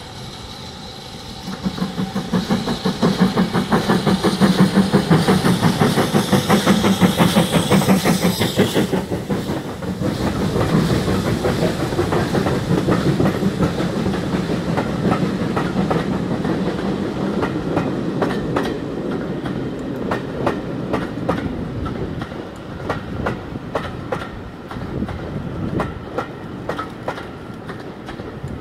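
Steam train passing close by: the locomotive's exhaust beats come loud and fast for the first several seconds, then stop abruptly about nine seconds in. The coaches follow, rumbling by with their wheels clicking over the rail joints.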